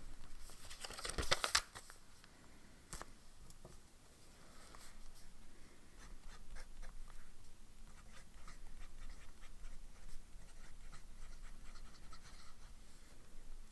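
Sailor 1911S Fresca fountain pen with a zoom nib writing on notepad paper, the nib giving small, irregular scratches and ticks. The first couple of seconds hold louder rustling and scraping as the spiral notepad is picked up and set down.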